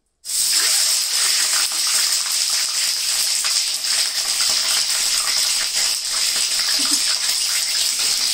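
Chicken leg pieces frying in hot oil in a pan, giving a loud, steady sizzle that starts abruptly. The spattering is heavy because the chicken is still wet with water.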